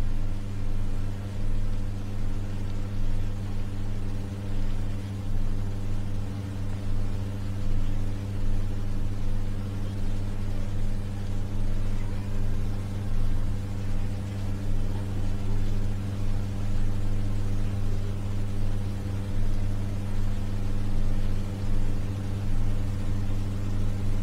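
A steady low hum with a ladder of evenly spaced overtones and a faint hiss above it.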